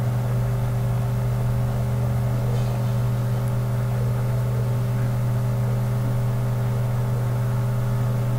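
A steady low electric hum with a stack of even overtones, like a motor or fan running, holding the same level throughout.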